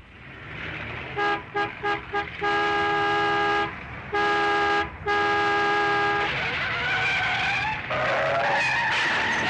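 Car horn sounding four quick toots, then three long blasts. It is followed by tyres squealing in a long wavering skid. Car noise swells up underneath during the first second.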